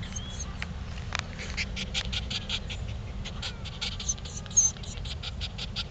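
Jack Russell terrier panting fast, several quick breaths a second, close to the microphone, over a low rumble of wind on the microphone.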